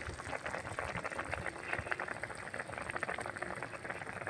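Climbing perch (koi) fish curry boiling in a metal karahi: the thick, oily gravy bubbles hard, giving a dense, steady crackle of small pops.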